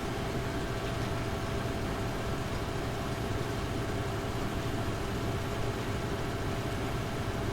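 Cooling fans of an NVIDIA GeForce RTX 2070 Super graphics card running in automatic fan-speed mode: a steady whir with a constant low hum and a few steady tones. Across these seconds the level holds even, with no clear rise and fall in fan speed.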